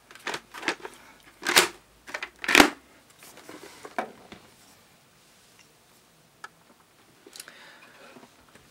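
Hard plastic knocks and clatter from motorcycle helmets being handled, with about four loud knocks in the first three seconds, then a few quieter clicks and rustling.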